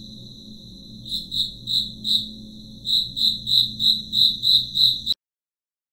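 High-pitched insect chirping: a steady shrill trill, joined from about a second in by chirps about three a second, over a low steady hum. All sound cuts off abruptly about five seconds in.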